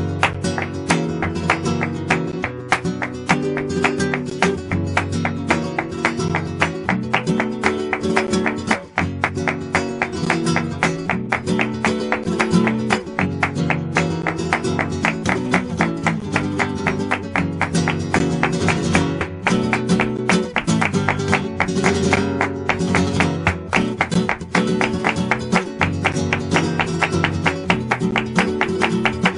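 Flamenco guitar playing fast, with dense strummed and picked notes, starting abruptly.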